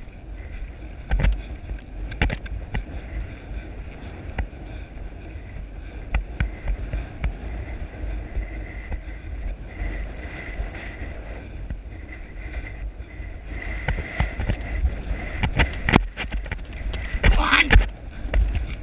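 Wind rumbling over the microphone of a camera on a horse being ridden at pace, with scattered knocks from hooves and tack and a louder rush near the end.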